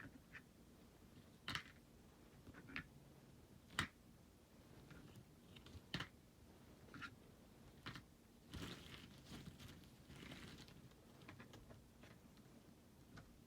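Faint, scattered clicks and taps of small plastic toy pieces being handled and put away, with a short rustle about nine seconds in.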